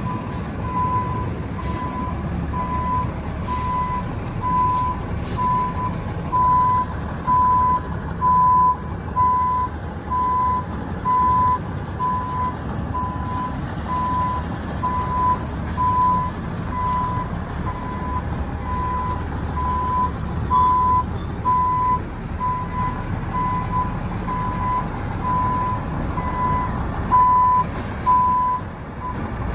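Front-end loader garbage truck backing up: its reverse alarm beeps about once a second over the steady rumble of its engine, and the beeping stops shortly before the end.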